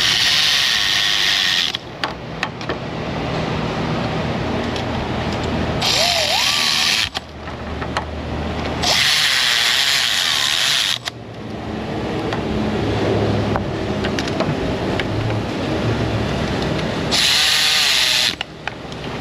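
A cordless power tool spinning in four short runs of one to two seconds each, driving in the bolts that hold the A/C refrigerant hose fittings to a newly fitted compressor.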